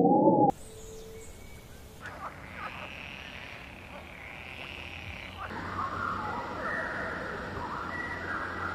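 A pitched call with a stack of harmonics cuts off sharply about half a second in. Faint outdoor ambience follows, with short repeated animal calls that grow busier and louder from about five and a half seconds.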